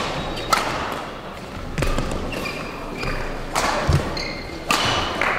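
Badminton rally: rackets striking a shuttlecock about four times, a second or so apart, with short shoe squeaks on the court floor between the hits and one dull thud near the middle, echoing in the hall.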